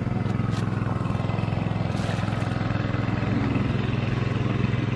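A small engine running steadily at an even speed, a constant drone with no change in pitch.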